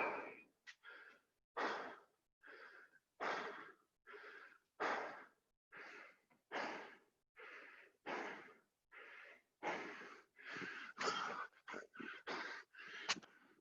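A man breathing hard and fast through his mouth, loud and quieter breaths alternating about once every second and a half: he is out of breath from burpees. A short sharp click near the end.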